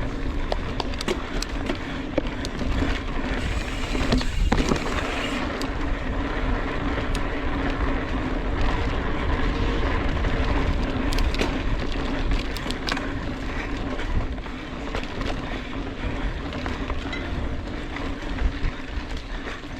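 Mountain bike being ridden hard along a dirt singletrack trail: steady rolling noise from the tyres, with frequent sharp clicks and rattles from the bike over rough ground.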